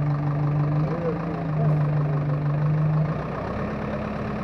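JCB backhoe loader's diesel engine running steadily under way, its note changing and dropping a little in level about three seconds in as the machine works the bucket against a fallen tree.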